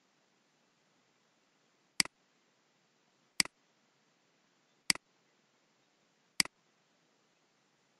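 Computer mouse button clicked four times, about a second and a half apart; each click is a quick double sound of press and release.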